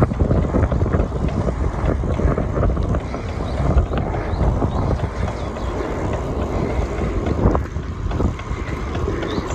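Wind buffeting the microphone of a camera riding along on a moving bicycle: an uneven, gusting low rumble that does not let up.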